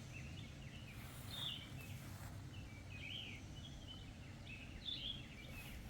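Birds singing and chirping in short phrases, several times, over a steady low background rumble.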